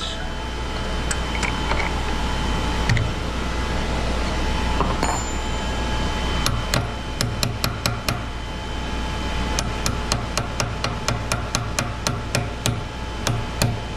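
Steel wrenches clicking and tapping against the collet nut and spindle of a CNC router as the nut is loosened and the bit is worked free. From about halfway through there is a run of sharp clicks, two or three a second, over a steady low hum.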